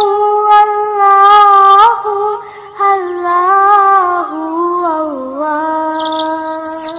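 A high female voice singing a naat without instruments, holding long notes that bend slowly up and down, with a short break about two and a half seconds in.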